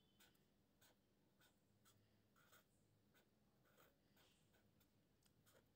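Faint scratching of a felt-tip marker drawing on paper, in short, irregular strokes.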